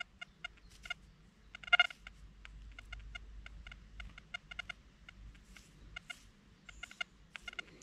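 Metal detector giving short, irregular chirping blips, many in a row, with a louder blip about two seconds in.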